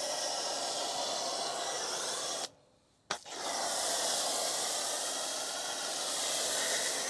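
Foam gun on a hose spraying snow foam onto a car wheel: a steady hiss. It cuts out for about half a second a little past halfway through and comes back with a click.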